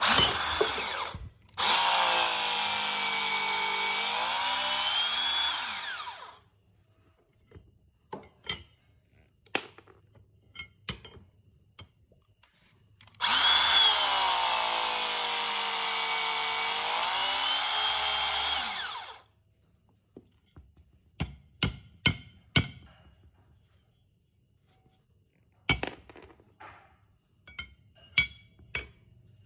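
Makita 18V cordless hydraulic steel cutter running twice, about six seconds each time, its motor whine sagging in pitch and rising again within each run. Scattered clicks and taps between the two runs.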